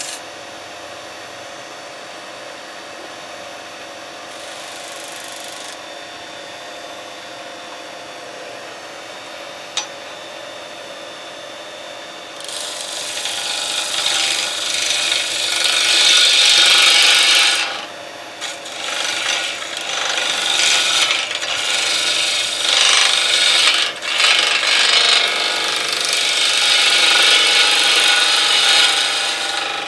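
Record Power Coronet Herald wood lathe running with a steady hum. About twelve seconds in, a hand-held turning tool starts cutting the spinning golden cypress blank: a loud hiss of shavings coming off, in several passes with brief breaks.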